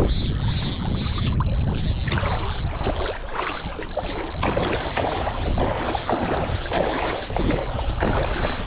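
Water sloshing and splashing against the side of a small boat, with a steady low rumble of wind on the microphone.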